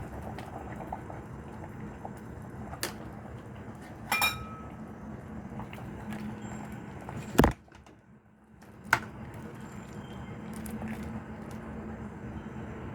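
Four sharp metal clinks of a utensil against the soup pot, one of them ringing briefly, over a steady low hiss. The sound drops out for about a second after the loudest clink.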